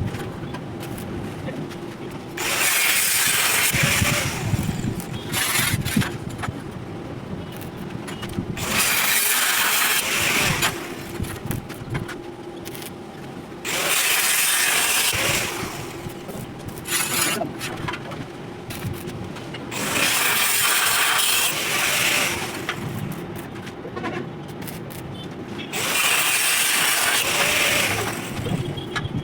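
Electric arc welding in short runs: five bursts of crackling hiss, each about two seconds long and roughly six seconds apart, as short welds or tack welds are laid on the metal.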